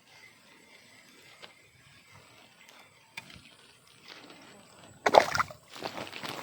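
Faint small clicks and rustles, then a sudden loud splashing and sloshing of water about five seconds in.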